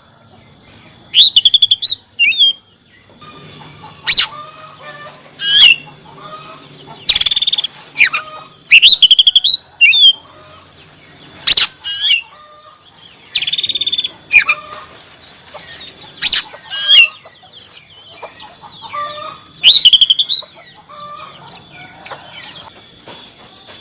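Oriental magpie-robin (kacer) singing loudly in short, separate phrases every second or two. The phrases are clear rising and falling whistles mixed with a couple of harsh, buzzy rattles. The song thins out near the end.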